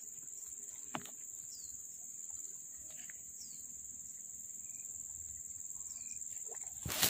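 A steady, high-pitched drone of insects, with a few sharp clicks and faint short chirps over it. Just before the end a sudden loud, noisy burst cuts in.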